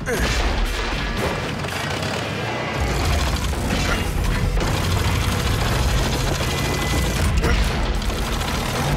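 Background music over cartoon machinery sound effects: mechanical clanking and whirring from a robot's moving joints, with several heavy thuds as stone pillars are set into the ground.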